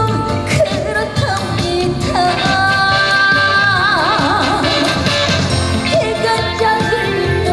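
A trot song performed live: a singer holds long notes with wide vibrato over a full band backing.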